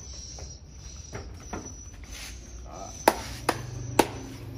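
Three sharp hand claps, about half a second apart, near the end.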